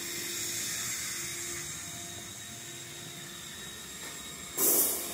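Hot tub air blower running: a steady hissing whoosh with a faint hum, and a short, louder burst of rushing noise near the end.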